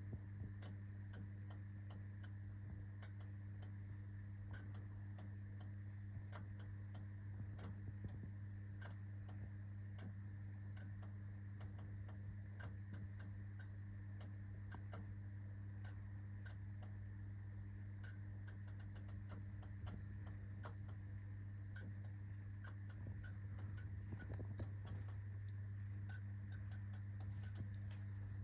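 A 40 W T12 fluorescent tube fixture with a steady mains hum from its ballast, overlaid by irregular clicking from the starter as the tube struggles to strike: a hard start.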